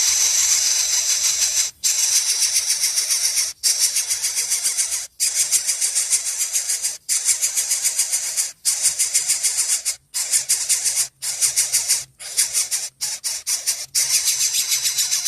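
Baby birds begging while being fed: loud, raspy, rapidly repeated chirps in bursts of a second or two, broken by brief pauses.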